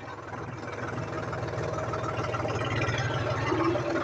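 John Deere 5050D tractor's three-cylinder diesel engine running, heard from the driver's seat, getting steadily louder over the first couple of seconds.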